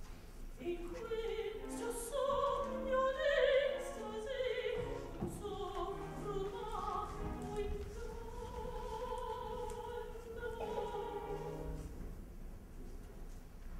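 Live operatic singing with orchestra: a soprano sings a flowing line, holding long notes in the middle of the passage.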